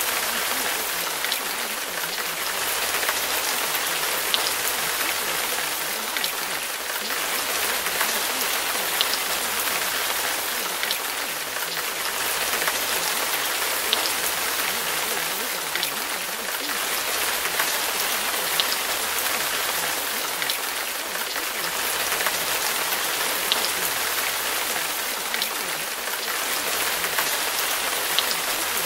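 Steady rain falling, an even hiss with scattered drop taps, gently swelling and easing every few seconds.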